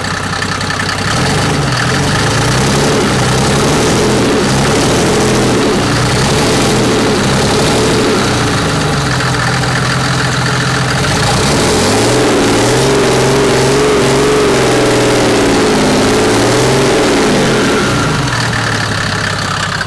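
Mercedes diesel engine, newly fitted with a Holset HX35 turbocharger, running and being revved by hand from the engine bay. The revs rise and fall again and again from about a second in, in quicker blips for several seconds towards the end, then settle back. The turbo is not yet blowing into a manifold, so there is no boost.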